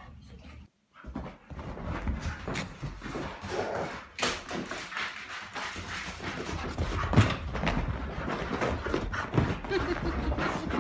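A dog scrambling and running about a room, its paws thudding and scuffing on the floor in an irregular patter, with a few louder thumps.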